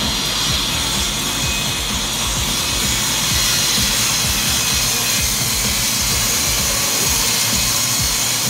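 Table saw running and ripping a wooden board lengthwise, a steady cutting noise, with background music mixed in.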